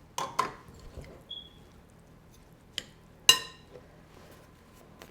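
Kitchen utensil clinking against a mixing bowl while filling ingredients are added: two quick clinks at the start, then two more about three seconds in, the last one ringing out.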